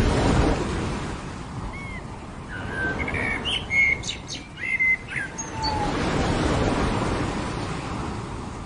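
Ocean waves breaking and washing up on a beach, swelling twice, with a run of short bird chirps in the middle.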